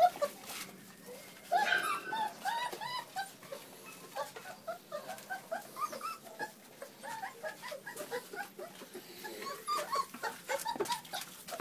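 A litter of one-month-old puppies whimpering and yipping: many short, high cries from several pups at once, overlapping.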